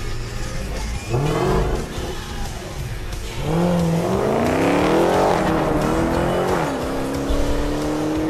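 Supercharged 6.2-litre Hemi V8 of a Dodge Challenger SRT Hellcat and the 426 Hemi V8 of a 1971 Challenger, revving on a drag strip. A short rise in revs about a second in, then from about three and a half seconds hard acceleration with the pitch climbing steeply, a brief dip in pitch near seven seconds, then a steady climb again.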